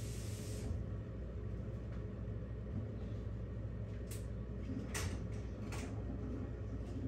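Steady low background hum with a high hiss that drops away about a second in, and a few light clicks or taps about four, five and six seconds in.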